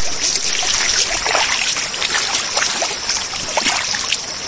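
Shallow runoff stream running over a washed-out road, burbling and splashing right at the microphone.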